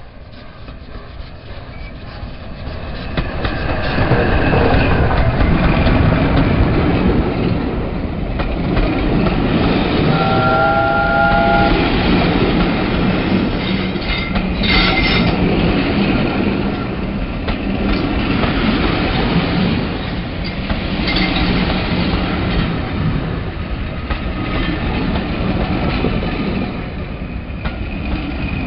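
LNER A1 Pacific steam locomotive No. 60163 Tornado coming up and passing close by with its train, growing loud over the first few seconds. Its coaches then roll past with their wheels clicking over the rail joints. A brief steady high tone comes about ten seconds in, and a short sharp clank about fifteen seconds in.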